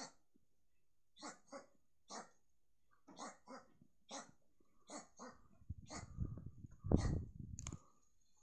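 A dog barking repeatedly: about a dozen short barks, some in quick pairs. A low rumbling noise comes in under the barks near the end and is the loudest part.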